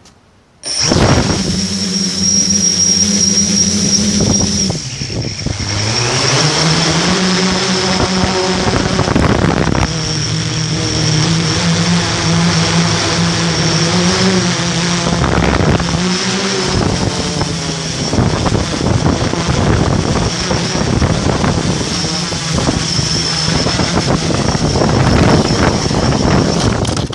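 S500 quadcopter's electric motors and propellers, heard from a camera on board: they start abruptly about a second in and run as a loud buzzing whine. The pitch dips and rises as the throttle changes, over a steady high whine. The motors stop suddenly near the end.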